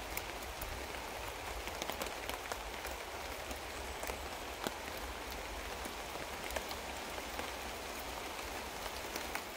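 Steady rain pattering on a tarp overhead, with scattered sharp ticks of drops.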